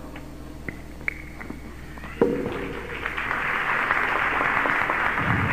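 Audience applauding, starting from scattered sounds and swelling to steady clapping about halfway through. A sharp knock comes a little before the applause.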